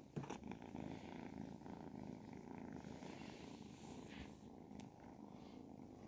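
Ragdoll kitten purring steadily and faintly while being stroked.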